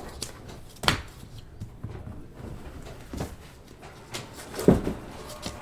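A few scattered knocks and taps, the loudest about four and a half seconds in.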